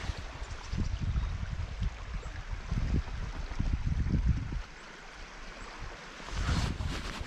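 Small river flowing steadily over a shallow riffle. Irregular low rumbles buffet the microphone and die down a little past halfway through, with a brief swell near the end.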